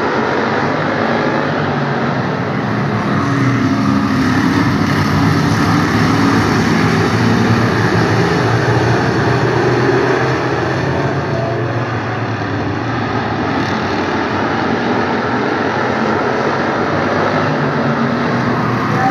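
A field of Hobbystock race cars lapping an oval track, many engines running at once as a steady, loud drone. It grows louder for several seconds early on as the pack comes by and dips briefly past the middle.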